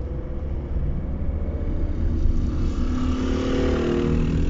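Steady road rumble inside a moving car, with the buzz of a small 50 cc motorbike engine growing louder in the second half as it comes up close to the car.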